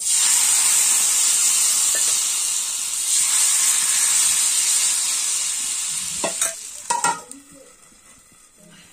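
Rice-flour ghavne batter sizzling as it is poured onto a hot cast-iron kavil pan: a loud, high hiss that starts suddenly and dies away after about six seconds. Near the end come a few sharp metallic clinks as a steel lid is set over the pan.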